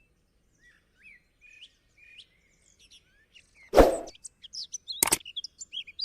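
Birds chirping faintly, with short rising and falling calls. A single loud knock comes about four seconds in, followed a second later by a sharp click.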